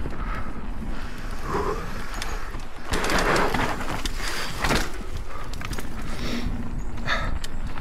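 Propain Spindrift mountain bike rolling fast down a dirt forest trail: knobby tyres rushing over the ground, with wind rumbling on the camera microphone. Louder surges come about three and nearly five seconds in, and a few sharp knocks from roots or rocks near the end.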